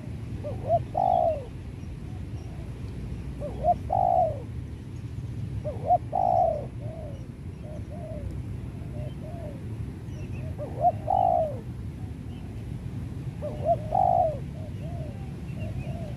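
Spotted dove (tekukur) cooing: five phrases a few seconds apart, each a short note followed by a longer, louder coo and a few softer trailing notes.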